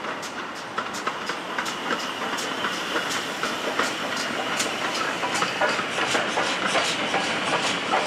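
Steam train arriving at a station: wheels of the passenger coaches clicking irregularly over rail joints and points, more often toward the end, over a steady hiss of steam from the locomotive.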